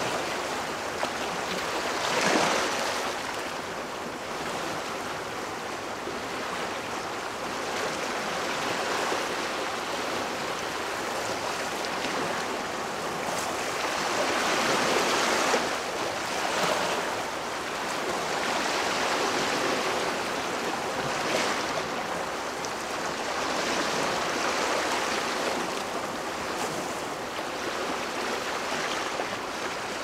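Strong wind blowing in gusts, a whooshing rush that swells and eases every few seconds, with the strongest gusts about two seconds in and around fifteen seconds.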